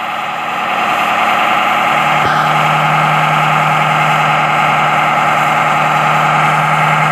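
Volkswagen Passat B3's 1.8 four-cylinder petrol engine held at steady high revs during a burnout, its driven tyres spinning in place. A deeper steady note joins about two seconds in.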